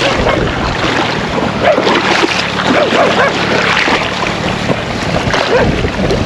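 Shallow river water rushing and gurgling around rocks right at the microphone, with wind buffeting the microphone.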